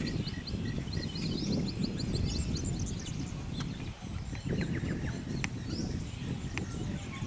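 Bird-like chirping with a fast, even trill during the first three seconds, then scattered short chirps, over a low rumble of wind on the microphone.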